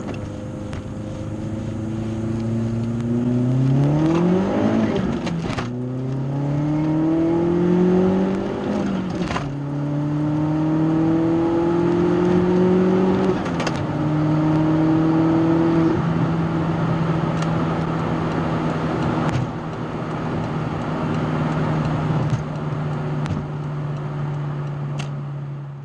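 VW Mk4 GTI's 1.8T turbocharged four-cylinder heard from inside the cabin, accelerating hard through the gears. The revs climb and fall back at three upshifts, about five, nine and thirteen seconds in, then hold steady at cruising speed.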